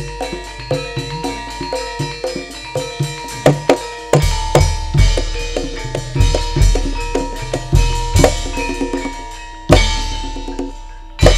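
Live Javanese gamelan music driven by drumming, with ringing metal gong-chimes over a quick, even beat. About four seconds in, the drumming turns heavier, with deep strokes, and two hard accents near the end are the loudest moments.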